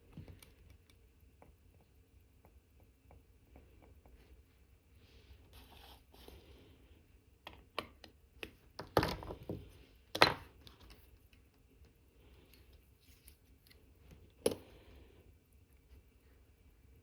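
Small clicks, taps and brief scrapes of watchmaker's tools handling parts while an Omega Cal.1109 movement is reassembled, with three sharper clicks in the second half.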